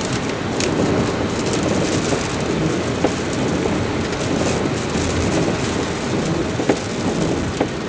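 Steady rushing noise of wind and rain in stormy weather, with scattered light ticks through it.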